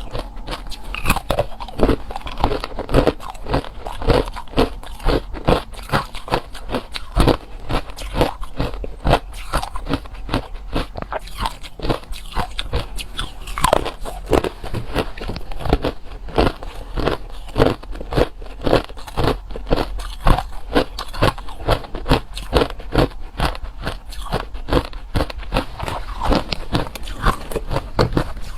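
Ice being bitten and chewed close to the microphone: rapid, irregular crunches, several a second, as hard and crushed ice cracks between the teeth.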